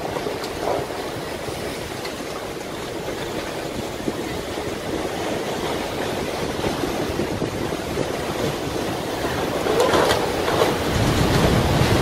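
Storm surf breaking over a harbour breakwater and surging across the waterfront: a steady rush of crashing water. It grows louder and deeper about ten seconds in as a bigger wave comes over and floods the quay.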